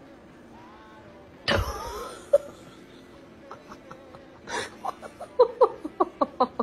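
A person laughing in quick, short bursts, starting about five seconds in. A short loud burst of sound comes earlier, about a second and a half in.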